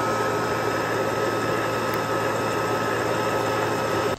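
Vertical milling machine running steadily with a constant high whine, its end mill cutting into a metal equalizing beam.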